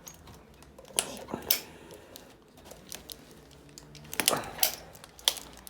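Hand duct cutter being squeezed shut through a plastic air-conditioner line-set cover, giving a series of sharp, irregular clicks and snaps, with a cluster of them near the end.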